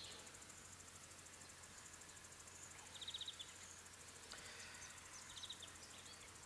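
Quiet outdoor ambience: a faint steady high hiss, with a short high trill heard twice, about three seconds in and again two seconds later.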